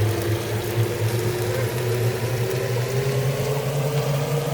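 A motor hum whose pitch rises slowly and steadily, over a steady hiss.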